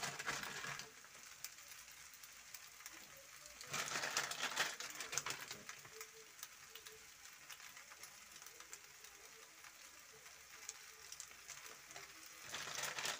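Faint sizzling of sauced pasta in a pan on a low flame, with three louder bursts of noise: at the start, about four seconds in, and near the end.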